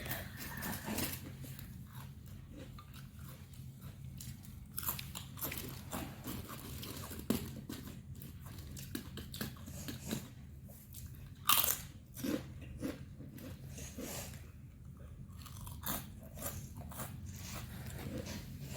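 A person biting and chewing crunchy food close to the microphone, with irregular crunches, the loudest about eleven and a half seconds in, over a steady low hum.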